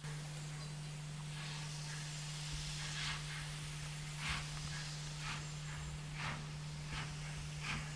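Steam locomotive exhaust beats, sharp hissing chuffs starting about a second apart and coming closer together as the engine gets its train moving, over a steady hiss of escaping steam from the open cylinder drain cocks.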